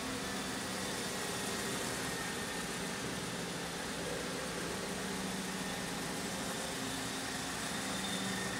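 Okamoto OGM-820UST universal cylindrical grinder running under power: a steady machine hum over an even hiss, with a few faint constant tones and no change in speed.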